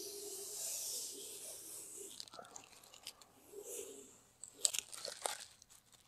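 Vinyl graphic film and its backing being rubbed down by hand and worked loose along a door edge. A dry rubbing rustle comes first, then a few sharp crackles near the end.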